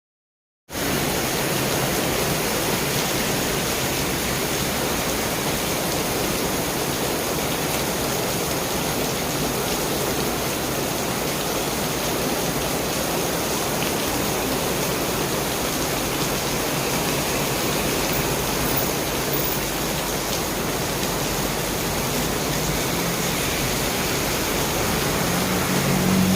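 Heavy rain falling steadily, a constant even hiss that starts abruptly under a second in. A low rumble joins right at the end.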